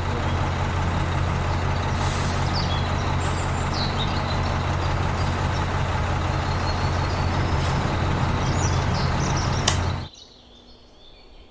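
A motor running steadily with a low hum and a noisy whir, cutting off suddenly about ten seconds in.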